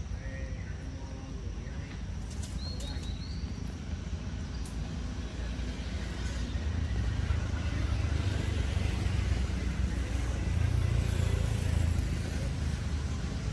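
Low engine rumble of a motor vehicle that grows louder about halfway through and eases off near the end, over steady outdoor background noise. A brief high chirp and a few small clicks come a couple of seconds in.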